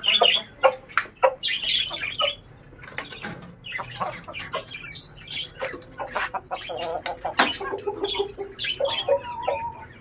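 Aseel chickens clucking in short, repeated calls, with scattered sharp clicks among them.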